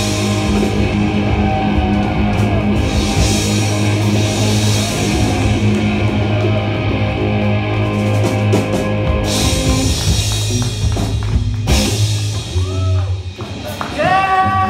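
Live punk rock band playing loud with distorted electric guitars, bass and a drum kit, with no vocals. The full band stops with a final hit about twelve seconds in. Scattered gliding pitched sounds follow as the song ends.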